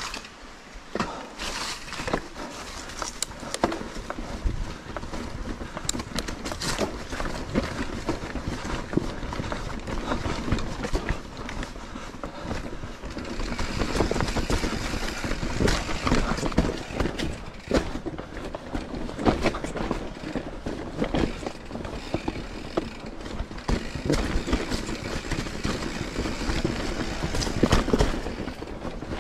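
Mountain bike ridden over a rough trail: a continuous rumble of tyres on the ground with the bike rattling and many sharp knocks and clicks throughout.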